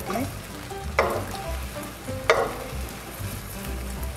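Thin beaten egg frying in an oiled nonstick pan with a steady soft sizzle, while a plastic spatula scrapes the pan and lifts and rolls the omelette. Light background music plays underneath.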